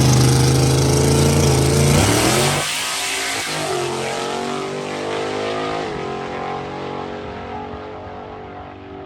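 Supercharged LS V8 drag car launching down the strip: the engine runs at high revs at a steady pitch for about two and a half seconds, then its pitch drops and climbs again through gear shifts as it pulls away and fades.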